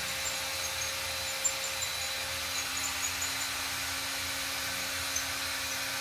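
Electric drill running steadily in reverse at constant speed, a steady whine with no change in pitch, turning the copper outer tube of a cell-tower coax cable to unscrew it off the aluminium core.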